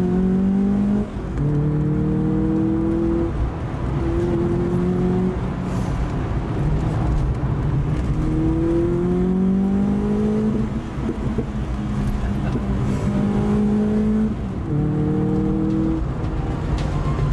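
The MK2 VW Golf GTI's 8-valve four-cylinder engine heard from inside the cabin while driving: the engine note climbs in pitch several times, breaking off briefly between climbs as if for gear changes, and holds steady in between.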